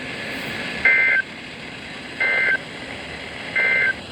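NOAA Weather Radio Emergency Alert System SAME end-of-message data bursts: three short, identical two-tone digital warbles about a second and a half apart, marking the end of the weekly test broadcast. A steady radio static hiss from distant reception runs underneath.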